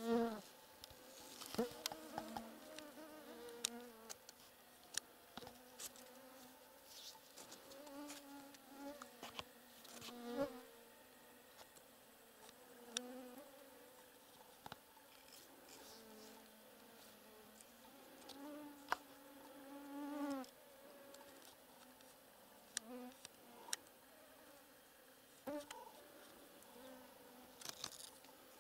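Flying insects buzzing close past the microphone in repeated passes, each buzz rising and falling in pitch over a second or two, with a few faint sharp clicks in between.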